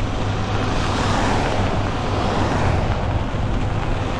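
Wind buffeting the microphone of a moving e-bike in the rain, a steady low rumble under the hiss of tyres rolling on a wet road.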